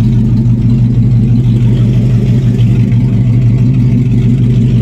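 Car engine idling steadily with an even drone, its idle speed brought back down after vacuum leaks were fixed.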